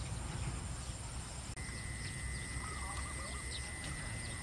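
Open-field ambience of insects holding steady high-pitched tones, with a second, lower insect tone starting abruptly about a second and a half in, faint bird chirps, and a low rumble underneath.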